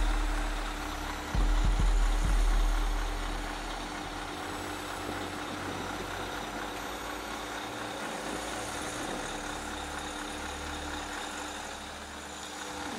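Scania R500 V8 truck engine idling with a steady hum. A deeper, louder rumble swells for about two seconds near the start, then settles back to idle.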